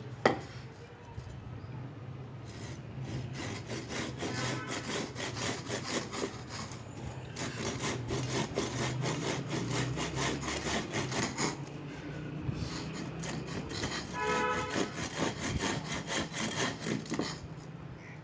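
Hand saw cutting wood with rapid, repeated back-and-forth strokes, after a single sharp knock at the start. A brief pitched squeak comes about two-thirds of the way through.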